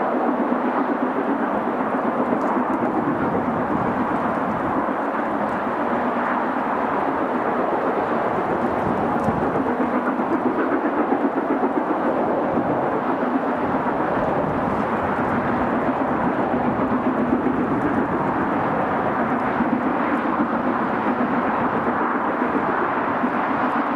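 LMS Princess Royal class 4-6-2 steam locomotive No. 6201 Princess Elizabeth working hard uphill, its four-cylinder exhaust a continuous fast beat.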